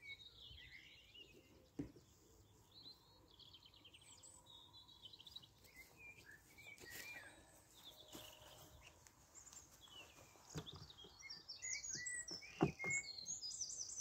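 Wild birds chirping and trilling in the background, busiest near the end. A few sharp knocks from wooden hive frames being handled and set down, the loudest a couple of seconds before the end.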